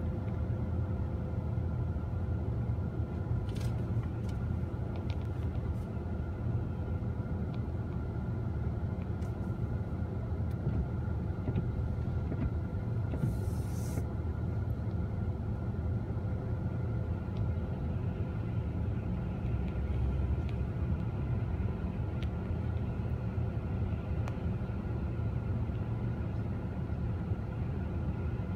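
Steady low rumble of a car at idle heard from inside the cabin, with a faint steady hum over it. A few light clicks come a few seconds in, and a short hiss about halfway through.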